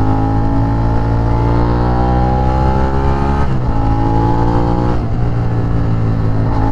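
Suzuki SV650's 645 cc V-twin running under acceleration, its pitch rising steadily. About three and a half seconds in, and again around five seconds, it breaks and drops in pitch as the rider changes gear.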